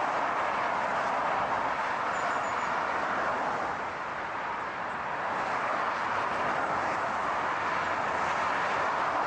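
Steady rushing noise of a moving car, with no distinct engine note, easing slightly about four seconds in.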